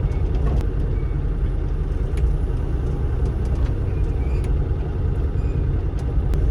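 Bobcat E35 mini excavator's diesel engine running steadily under work, a constant low drone, with scattered light clicks and taps over it.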